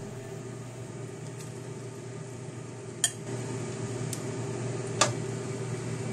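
A few light clinks of dishes over a steady low room hum: sharp ones about three and five seconds in, with a fainter one between.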